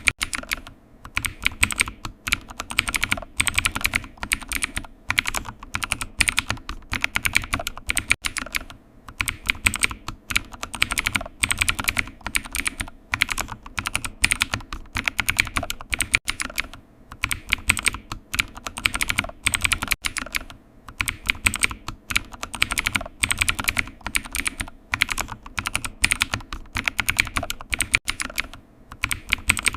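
Typing on a computer keyboard: a steady run of quick keystroke clicks, with short pauses every few seconds.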